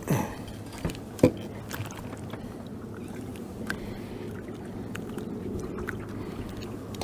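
A few sharp knocks and clicks as a just-landed crappie is handled in a small boat, the loudest about a second in, then lighter ticks. Under them runs a steady low rumble.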